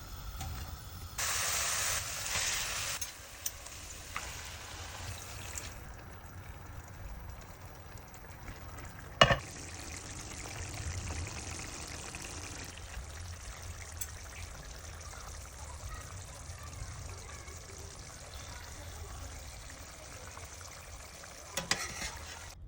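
Food frying and sizzling in hot oil in a pan, with a louder burst of sizzling about a second in. A sharp clack of utensil on pan about nine seconds in, and a few lighter clicks near the end.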